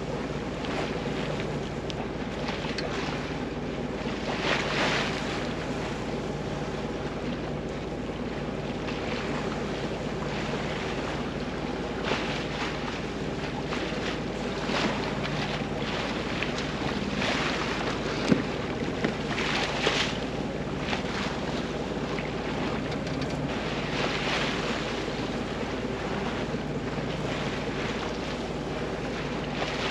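Water rushing and splashing along the hull of a 1965 Alberg 30 sloop under way, with wind buffeting the microphone. A steady low hum runs underneath, and a few louder splashes come through, the strongest about four and twenty seconds in.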